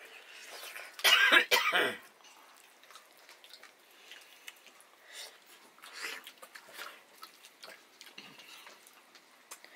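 A person coughs twice in quick succession, loudly, about a second in; then faint wet smacks and small clicks of eating by hand, fingers working nettle curry and corn rice on a steel plate, and chewing.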